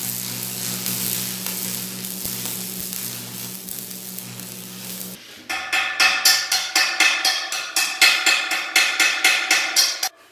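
Stick-welding arc on galvanized steel pipe, crackling and sizzling over a steady electrical hum; it cuts off about five seconds in. A quick run of sharp metallic strikes follows, about five a second, ringing the pipe: a chipping hammer knocking slag off the fresh weld.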